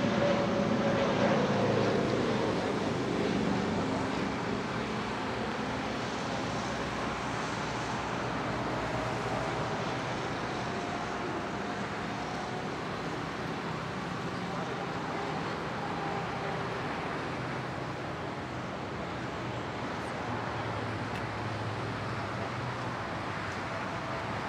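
Steady engine drone of an aircraft tow tractor pulling an airliner along the taxiway, with a falling whine in the first few seconds.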